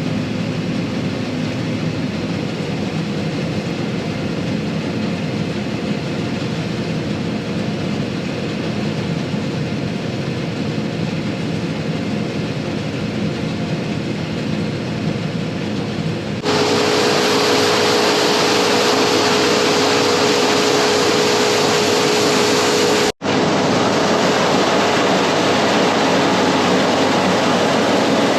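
New Holland TX62 combine harvester running steadily as it cuts beans. About sixteen seconds in, the sound jumps suddenly louder and brighter and a steady whine comes in, and it breaks off for an instant about seven seconds later.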